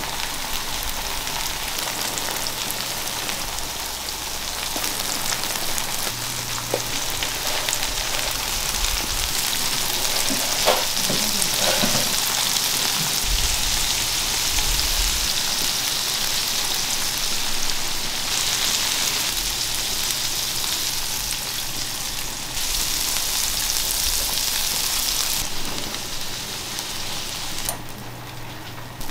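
Takoyaki batter sizzling in hot takoyaki pans, a steady frying hiss that steps louder and quieter a few times.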